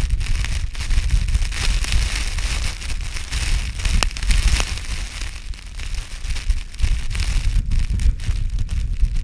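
Strong wind buffeting the microphone in gusts, with a gritty hiss of wind-blown ice crystals and snow.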